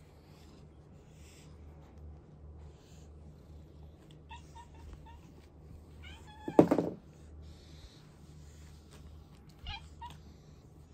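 Domestic cat meowing while being petted: a few short, soft mews about four seconds in, one loud meow a couple of seconds later, and another brief mew near the end.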